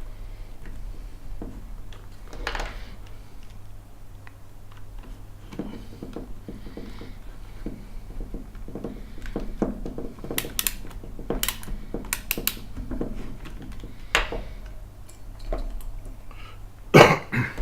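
Small screws, nuts and tools clicking and knocking against the acrylic printer frame as M3 screws are fitted, with a quick run of sharp clicks about ten seconds in and a louder knock near the end, over a steady low hum.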